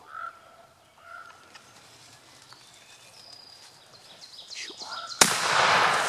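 A single shotgun blast about five seconds in, its report ringing on for most of a second. Before it, faint bird calls.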